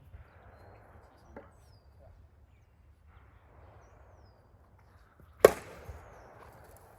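A plastic WIFFLE bat striking a WIFFLE ball once with a sharp hollow crack about five and a half seconds in, after a faint knock earlier.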